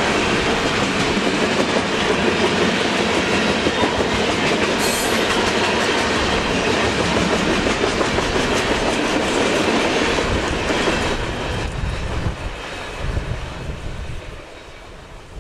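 Train cars rolling past, the wheels clattering over the rail joints in a steady loud rush. The sound fades away over the last few seconds as the train moves off.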